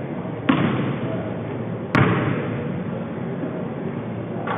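Two sharp thuds of a basketball, about a second and a half apart, each echoing through a large gym hall.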